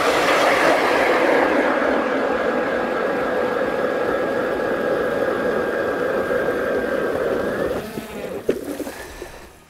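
ION Alpha battery-powered electric ice auger running and drilling through lake ice, a steady whine over the noise of the bit cutting. Near the end the pitch rises slightly, then the motor winds down and stops about eight seconds in.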